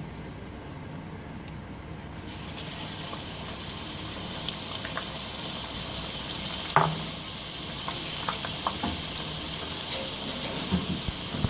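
Food sizzling in hot oil in a cooking pot: a steady hiss starts suddenly about two seconds in and holds, with a few knocks of a utensil against the pot, one louder knock near the middle.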